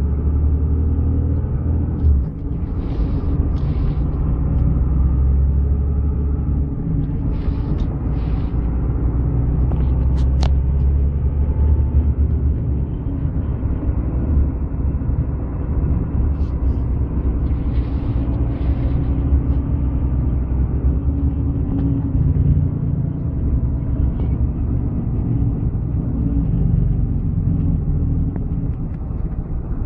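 A motor vehicle running steadily: a loud low engine drone and road rumble, with a few brief hissing sweeps in pairs.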